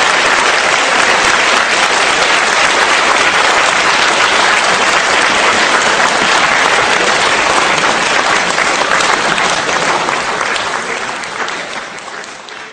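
Audience applauding steadily, a dense patter of many hands clapping, which fades away over the last couple of seconds.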